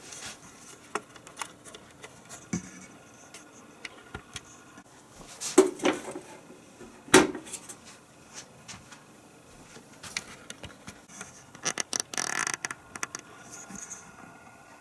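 Handling of an electric contact grill: scattered clicks and knocks of its lid and metal hinge arms, the loudest two about six and seven seconds in, and a brief scraping rattle near the end.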